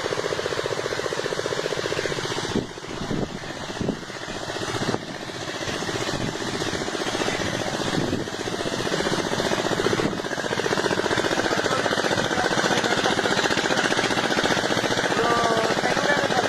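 A diesel engine running steadily with a fast, even knocking beat while it drives pond aerators. Its level dips for a couple of seconds about three seconds in, with a few knocks, then returns to steady running.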